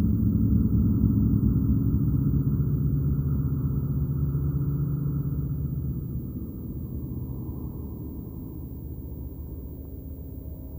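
Low analog electronic drone: several held low tones with a rumbling texture, easing down in level about six seconds in.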